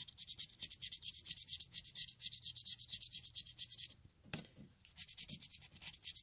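Scratch-off lottery ticket being scratched, quick even rasping strokes across the coating. The strokes stop briefly about four seconds in, with one light knock, then start again.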